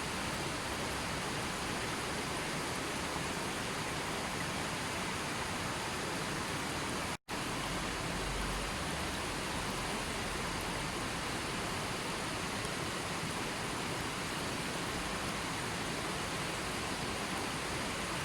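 Steady, even rushing of water, like a waterfall, stream or heavy rain, that drops out completely for an instant about seven seconds in.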